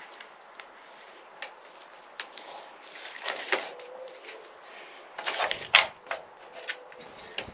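Plastic clicks and rubbing as the recoil starter housing of a Stihl MS 462 C chainsaw and its new starter rope are handled, with a louder rattle ending in a sharp knock about five and a half seconds in.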